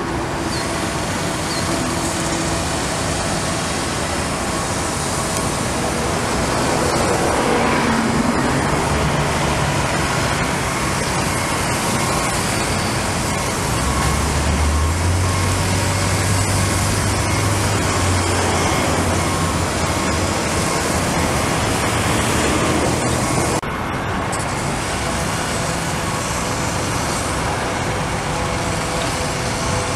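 Caterpillar 336E excavator's diesel engine working, mixed with a steady din of street traffic; about halfway through, a deep engine note rises and holds for several seconds as the machine comes under load. The level drops slightly and abruptly about three-quarters of the way through.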